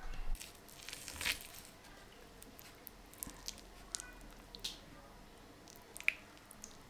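Close-up food sounds: soft, irregular squelches and crunches with a few sharp clicks, the loudest about a second in and again near the end.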